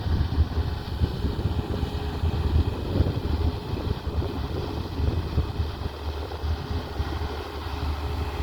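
Tata Hitachi excavator's diesel engine running with a steady low rumble.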